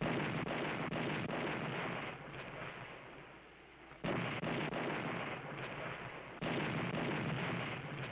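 Naval gunfire: three salvos, the second about four seconds after the first and the third about two seconds later, each starting suddenly and fading over about two seconds.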